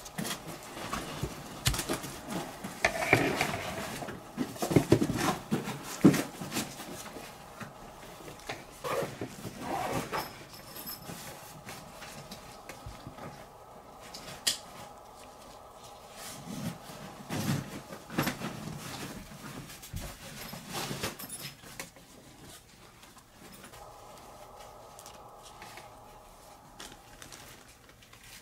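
Plastic clicks, knocks and rubbing as gloved hands work a GoPro Hero 5 camera out of its plastic frame mount and put the frame down, busiest in the first ten seconds and then occasional. A faint steady hum sits underneath from about ten seconds in.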